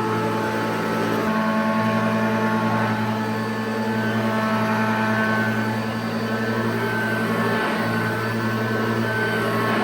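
1989 Hoover Junior U1104 upright vacuum cleaner running steadily on its replacement 300 W motor, a constant motor hum and whine.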